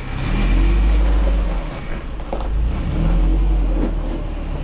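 Off-road truck engine running at low speed while crawling over rocks, a steady low rumble, with a couple of short knocks about two and a half and four seconds in.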